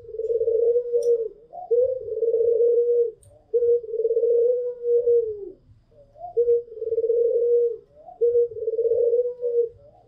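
White (albino) Barbary doves, the caged 'puter pelung' type, cooing in long drawn-out calls: about five sustained low coos a second or more each, run together with short rising notes between. One coo near the middle is longer and drops in pitch at its end.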